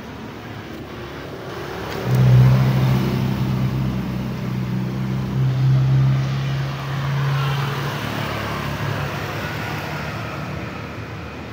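A motor vehicle going by on the road: a steady low engine hum comes in about two seconds in, then tyre noise swells and fades away toward the end.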